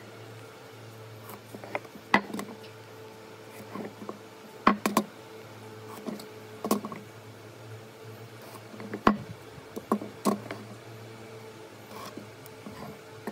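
Handling knocks and clicks at irregular intervals as a steel square and pine blocks are set down and shifted on a wooden workbench while lines are marked in pencil. A steady low hum runs underneath.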